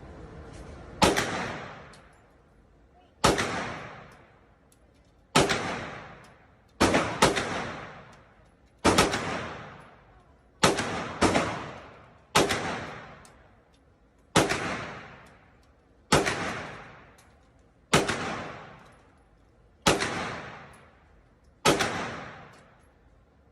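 Gunshots fired one at a time at a shooting range: fourteen sharp cracks about every two seconds, twice in quick pairs, each followed by a long fading echo.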